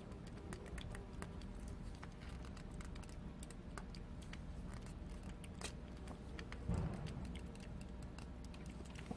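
Cat licking a churu squeeze-tube treat: a run of small, irregular clicking licks over a steady low hum.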